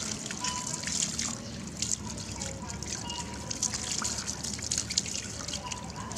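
Water from a garden hose running and splashing onto wet concrete and a wet baby monkey's fur, with steady trickling and many small irregular drips and splashes as hands rinse and rub it.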